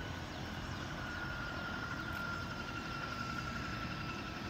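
Distant helicopter turbine running: a steady high whine that drifts slowly down in pitch over a low rumble.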